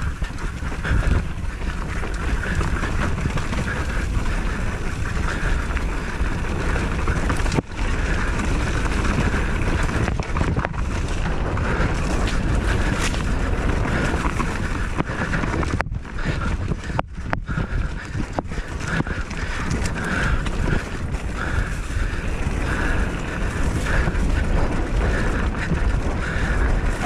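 Wind buffeting the camera microphone during a fast trail ride: a steady heavy rumble with a rushing hiss, broken by occasional knocks from bumps and a few short dropouts in the second half.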